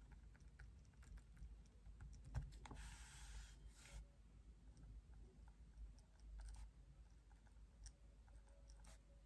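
Faint pen writing on notebook paper: light scratches and small clicks of the pen tip. There is a longer scratchy stroke a little under three seconds in.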